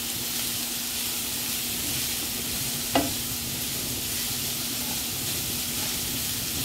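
Riced cauliflower with diced carrot and capsicum sizzling in a frying pan while a wooden spatula stirs and scrapes through it, with a steady frying hiss. There is a single sharp knock about three seconds in.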